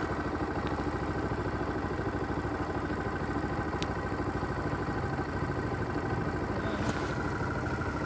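Bajaj Pulsar motorcycle's single-cylinder engine running steadily at low revs, near idle.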